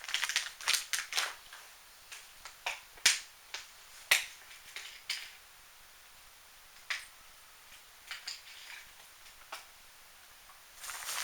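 Irregular sharp clicks and crinkles of kit parts and plastic packaging being handled, thick for the first five seconds or so, then only a few scattered clicks.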